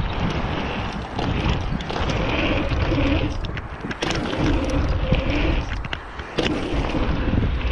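Mountain bike tyres rolling fast over packed dirt, with wind buffeting the helmet- or chest-mounted action camera. Short knocks a little before halfway, and a brief quieter lull ended by a sudden thump about six seconds in, like a wheel landing.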